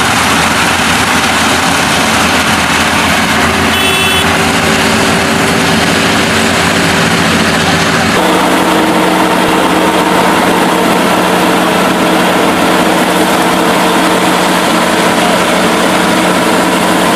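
FM World combine harvester running loud and steady, its engine and machinery holding a constant note that shifts to a different steady pitch about halfway through. A brief high tone sounds about four seconds in.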